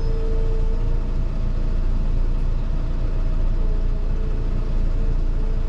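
Diesel engine of a forestry machine running steadily at a constant speed. A faint thin whine rises over it at the start and again in the second half.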